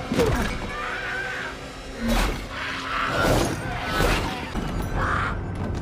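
Horror film soundtrack: tense music under strained cries and screams, with several loud crashing impacts.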